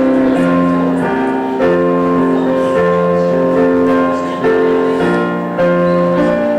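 Keyboard music: slow, held chords that change about every second or so, each note sustained without fading.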